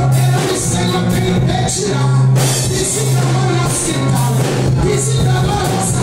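A live church band plays an upbeat Brazilian gospel corinho on drum kit and electric guitar over a steady bass, with a woman's voice singing through the microphone and PA. It has a steady beat, with a cymbal splash about once a second.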